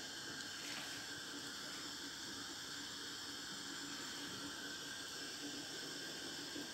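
Steady faint hiss of background noise with no distinct sounds.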